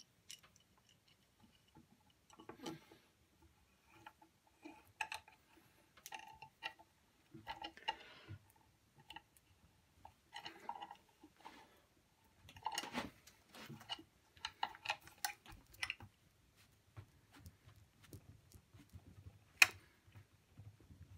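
Quiet handling noises of a small steel C-clamp: scattered clicks, taps and scrapes as its screw is turned and it is fitted against the wooden chair seat, with one sharp click near the end.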